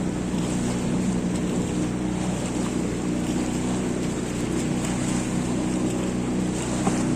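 Outboard motor of an inflatable boat running steadily at high speed, one even engine note, with the rush of water and wind beneath it.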